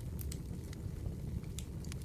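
Wood fire crackling: a steady low rumble of burning logs with frequent sharp pops and snaps scattered through it.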